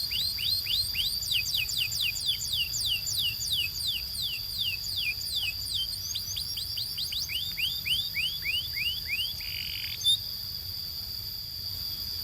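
A canary singing a long trill of repeated downward-sweeping whistled notes, about four a second and slowing a little. The trill ends about nine seconds in with a short buzzy note, then a sharp click, and the bird stays silent near the end. A steady high-pitched tone runs underneath.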